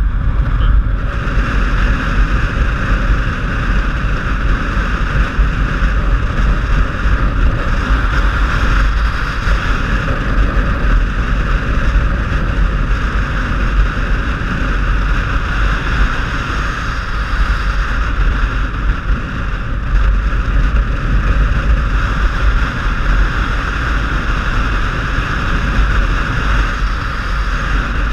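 Steady wind rush and road noise from a motorcycle ridden at a constant road speed, heard through a helmet-mounted camera, with a heavy low rumble and no change in pace.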